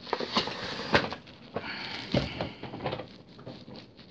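Cardboard box being handled and opened: scraping and rustling, with a few sharp knocks, the loudest about a second in, as the white inner packing is pulled out.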